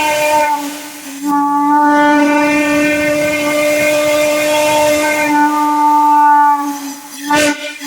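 Railroad chime whistle blown in long blasts, sounding a steady chord of several notes at once. It drops away briefly about a second in, then holds for about six seconds, breaking off near the end for one short toot.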